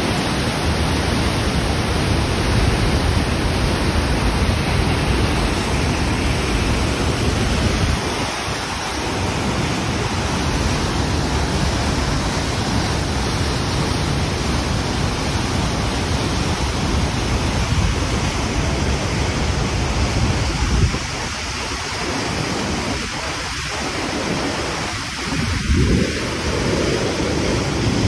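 Waterfall and rushing mountain torrent making a steady, loud roar with a deep low rumble, easing slightly a couple of times.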